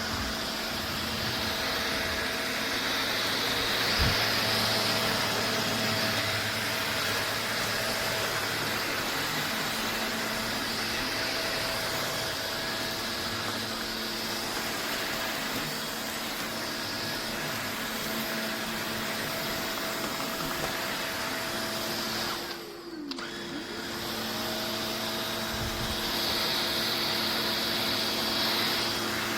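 Cordless stick vacuum cleaner running with a steady motor hum, high whine and rushing air. About three-quarters of the way through, the motor cuts off and winds down, then starts up again a second or so later.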